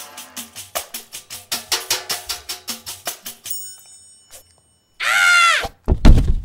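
Cartoon soundtrack: light percussive music with quick wood-block-like beats stops about three and a half seconds in, leaving a few high held tones. After a brief gap comes a loud half-second cry that rises and falls in pitch, followed by a couple of heavy thumps as a figure falls over.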